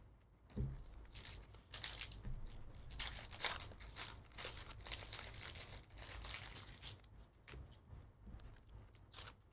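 Trading-card pack wrappers from 2023-24 Panini Prizm Basketball hobby packs being torn open and crinkled by hand, in irregular rustles and tears.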